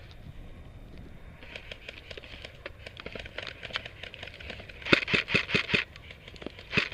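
Airsoft guns firing on full auto: a run of fainter rapid clicks from further off, then a loud quick burst of sharp shots about five seconds in, and another burst starting near the end.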